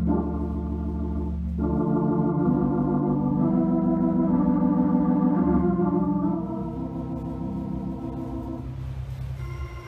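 Console organ played with slow, held chords that change every second or two, over deep bass pedal notes at first. It grows softer from about six and a half seconds in.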